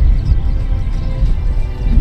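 Background music: held notes over a heavy, deep bass.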